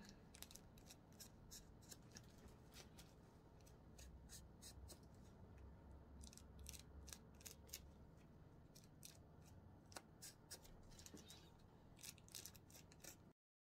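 Needle and weaving thread being drawn through a lace frontal and wig cap in hand-sewing: faint, irregular short rasps and rustles of thread pulling through the lace, cutting off abruptly near the end.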